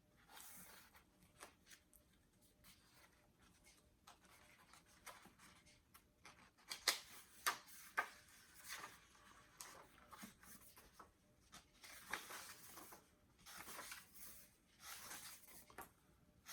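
Faint, irregular paper rustles and flicks: the pages of a book being leafed through, with a few slightly louder page turns in the second half.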